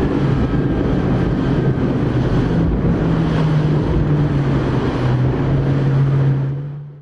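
Motorboat engine running with a low, wavering drone, with wind buffeting the microphone and water rushing past the hull. It all fades out near the end.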